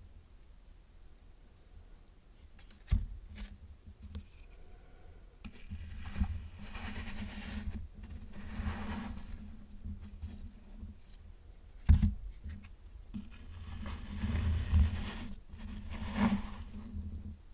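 Kinetic sand being cut and scraped with metal tools, with crumbly scraping that comes and goes in stretches. Two sharp knocks, one about three seconds in and a louder one about twelve seconds in.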